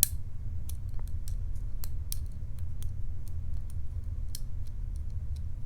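Lock pick working the pin tumblers of a Lockwood padlock: a run of small, sharp, irregular metallic clicks, about three or four a second, as the pins are probed and set.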